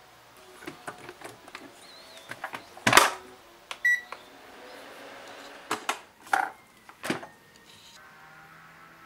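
Rice cooker being handled: scattered clicks and knocks, a loud clunk about three seconds in, then a short electronic beep about a second later, followed by a few more knocks.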